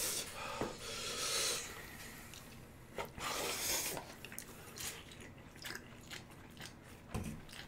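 A person slurping and chewing spicy instant noodles from a cup. There are hissing slurps about a second in and again around three seconds in, with small clicks between.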